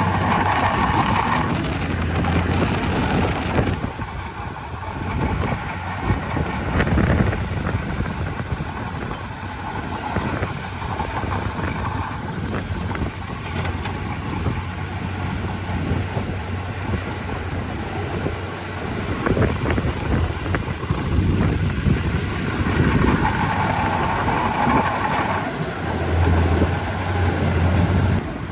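Heavy diesel earthmoving machinery running continuously, its engine noise rising and easing, with a low steady hum that is strongest near the start and again near the end.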